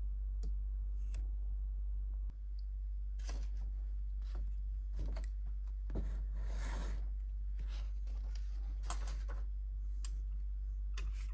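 Quiet desk handling sounds over a steady low hum: scattered light clicks and taps from small parts being handled, with a short scratchy rustle a little past the middle.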